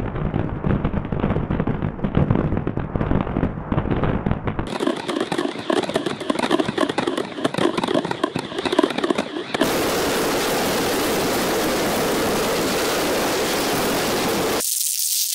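Dense fireworks crackling and popping, put through altered effects: muffled at first, then thin with no bass from about five seconds in. Past the ten-second mark it turns into a steady hiss, thinning to a high hiss near the end.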